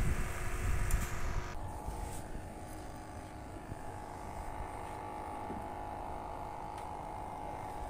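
Wind buffeting the microphone, then from about a second and a half in a steady low engine drone with a faint held tone.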